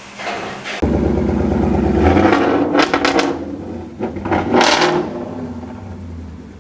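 Ford Mustang's engine running at the exhaust, revved twice: one blip about two and a half seconds in and another about four and a half seconds in, falling back to idle between and after.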